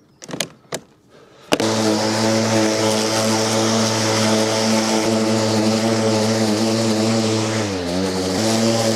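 Milwaukee M18 FUEL 21-inch battery lawn mower starting instantly after a few light clicks, then running with a steady hum as its blade cuts and collects grass. About eight seconds in, the pitch dips briefly and recovers as the motor meets thicker grass.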